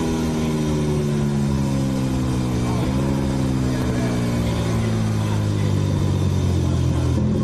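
Onboard sound of a Ducati Desmosedici MotoGP bike's V4 engine at speed, with wind rushing past the camera. The engine note falls slowly, jumps up sharply about three seconds in, then falls again before rising near the end.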